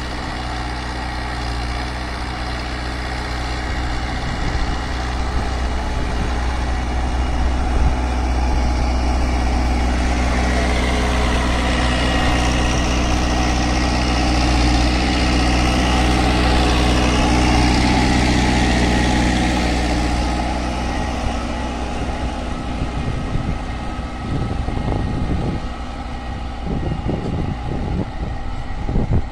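New Holland Dabung tractor's diesel engine working under load as it pulls a tined cultivator through the soil. The engine grows louder as the tractor passes close by in the middle, then fades as it moves away.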